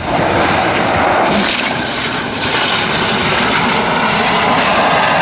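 Twin-engine light propeller plane running loud and steady as it rolls fast along a dirt airstrip.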